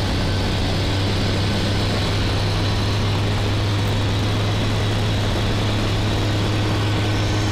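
Eurofox microlight's Rotax 912 flat-four engine and propeller running steadily at full power for a climb, a deep, even drone heard through the cockpit intercom.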